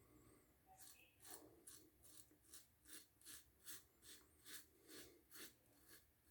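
Adjustable safety razor with a Dorco blade scraping through lathered stubble in short strokes, about two to three a second, faint. It is cutting several days' heavy growth.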